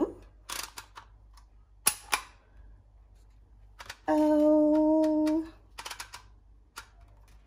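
Handheld Dymo embossing label maker clicking and clacking as its letter wheel is turned and the grip is squeezed hard to emboss letters into the label tape: a series of sharp clicks spread a second or so apart. About four seconds in, a woman's voice holds one steady note for over a second.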